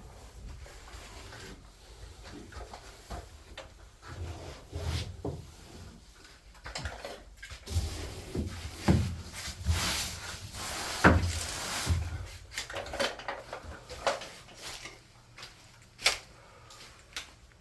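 Irregular knocks, clunks and scraping, like materials and tools being handled, busiest in the middle.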